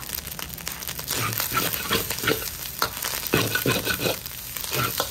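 Fried rice sizzling in a hot pot as it is stirred, with frequent irregular scrapes and knocks of the spoon against the pot.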